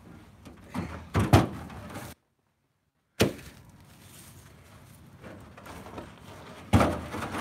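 Heavy ash firewood rounds knocking and thudding as they are pulled from a pickup truck bed and set down on a woodpile. There are three main thumps: the loudest about a second in, another about three seconds in and one near the end.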